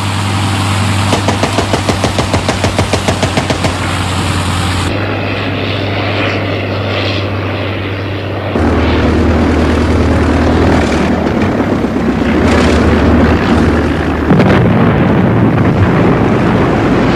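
Propeller aircraft engine running, a World War I-era aeroplane: a steady low drone with a rapid pulsing of about four beats a second for the first few seconds. The sound changes abruptly in level and tone about five and again about eight and a half seconds in.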